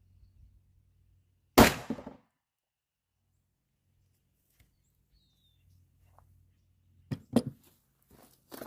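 A single shot from a Glock 27 pistol firing .40 S&W, about a second and a half in, with a short tail of echo. A few lighter knocks follow near the end.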